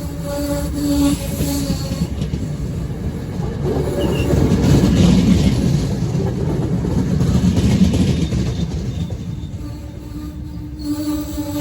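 A train rolling by on the rails: a heavy rumble of wheels and cars that swells to its loudest midway and then eases off, with a steady pitched squeal from the wheels at the start and again near the end.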